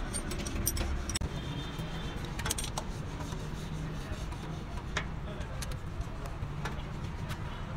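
A few sharp metallic clicks and knocks from hand tools on the loader's engine parts, coming at uneven intervals, the clearest about five seconds in, over a steady low hum.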